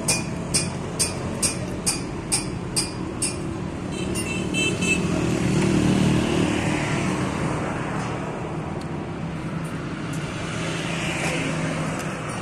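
Road traffic passing: a vehicle engine swells and fades with the loudest pass about six seconds in, and a smaller pass near the end. A regular clicking, about two a second, runs through the first three seconds, and a short high tone sounds about four and a half seconds in.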